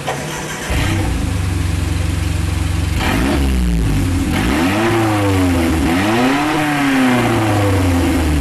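Nissan Terrano engine through an aftermarket valved cut-out exhaust: idling, stepping up in loudness about a second in, then revved up and down a few times before settling back to idle.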